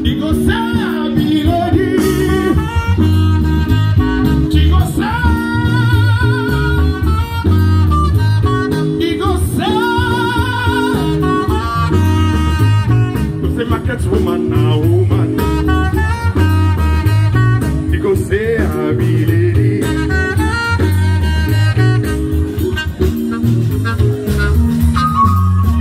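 Background music: a song with a singing voice over a steady, repeating bass line.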